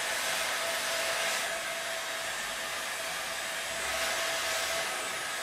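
Handheld electric heat gun blowing steadily, with a faint constant whine over the rush of air, as it heats a strip of thermoplastic carbon composite to soften it onto a plaster mold.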